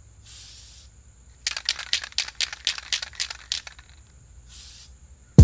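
Aerosol spray paint can: a short hiss of spray, then the can shaken hard, its mixing ball rattling in about two seconds of quick clacks, then another short hiss. A deep thump lands at the very end.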